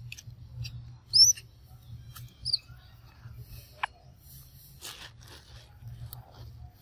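Short, high chirping calls, the loudest about a second in and a second one at about two and a half seconds, with scattered sharp clicks and a brief rustle from a macaque biting into a ripe mango.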